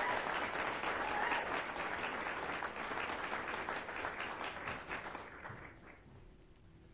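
A roomful of people applauding, the clapping dying away about five to six seconds in.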